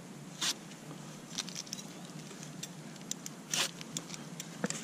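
Scissors snipping through spring onion stalks: two crisp cuts, one about half a second in and one about three and a half seconds in, with lighter clicks of the blades in between.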